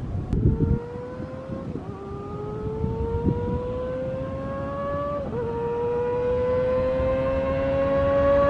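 Kawasaki ZX-25R's 250 cc inline-four, through an Austin Racing GP1RR exhaust, accelerating hard. Its pitch climbs in each gear with two quick upshifts, about two and five seconds in, and it grows louder as the bike approaches.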